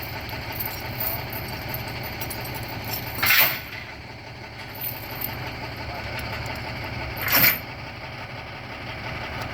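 Big truck's engine idling steadily, with two short, loud, hissing or rattling bursts about three and seven seconds in.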